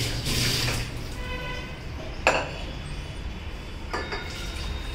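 Tap water running briefly at the start, then stainless-steel kitchen vessels clinking and knocking together, with a sharp metal clank a little over two seconds in and a lighter knock about four seconds in.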